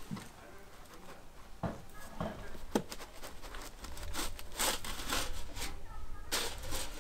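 Scrapes, rustles and light knocks as a scrap-metal form board is worked loose from the edge of a hardened concrete pad, with one sharper knock a little under three seconds in and a rougher run of scraping from about four seconds in.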